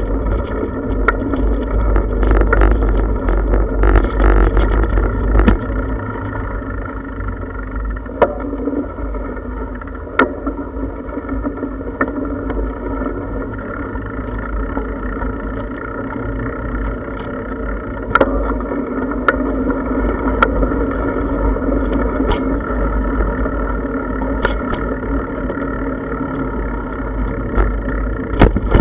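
Riding noise of a bicycle picked up by a camera mounted on the bike: a steady rumble and hum from the tyres rolling over brick paving and park paths. Sharp knocks come every few seconds as it goes over bumps.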